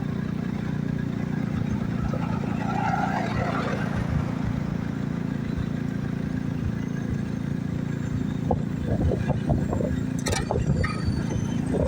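Engine running steadily with a low hum, joined about eight and a half seconds in by a string of sharp knocks and clanks.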